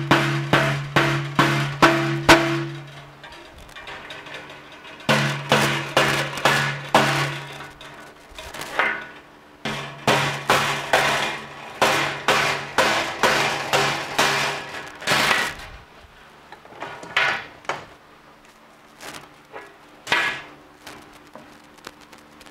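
Hammer striking steel wire hooks to bend them over and lock two welded-wire panels together, in runs of about two to three blows a second with a ringing clang, pausing between runs. A few lone blows come near the end.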